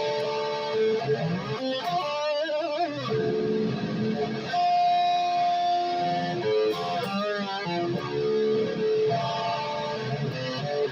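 Electric guitar, a 2005 B.C.Rich Mockingbird reshaped into an Explorer, playing lead lines: single notes with wavy string bends and vibrato about two seconds in and again near seven seconds, and a long held note in the middle.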